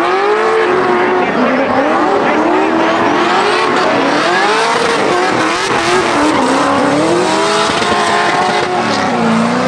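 Two drift cars in a tandem run, their engines revving up and down at high rpm and overlapping, over the hiss and squeal of spinning tyres.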